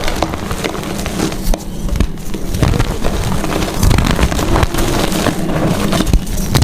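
Gym chalk being crushed and crumbled, giving dense, irregular crunching and crackling with many small sharp clicks.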